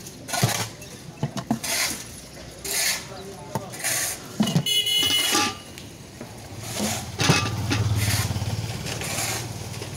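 Stainless-steel mugs, a ladle and lids clinking while juice is poured and splashed between mugs, with a steel lid ringing briefly about halfway through. A motorcycle engine runs over the last three seconds.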